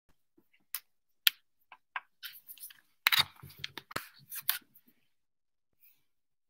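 A scatter of short sharp clicks and brief rustling handling noises, about a dozen, busiest between about two and four and a half seconds in, then near quiet.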